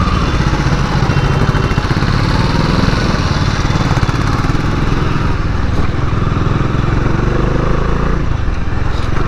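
Bajaj Dominar 400's single-cylinder engine running steadily through its stock exhaust as the motorcycle rides along.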